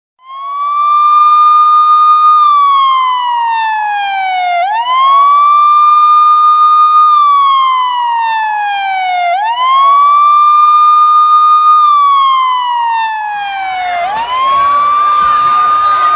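A siren wailing: its pitch climbs quickly, holds high for about two seconds, then slides slowly down, three times over. Near the end a noisy, crowd-like din joins it.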